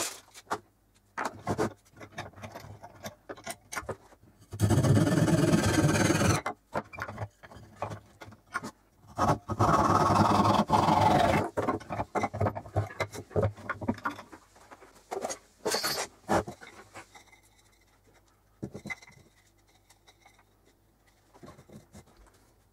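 Hand saw cutting a thin wooden strip in two loud stretches of about two seconds each, with scattered clicks and knocks of wood and tools being handled on the bench.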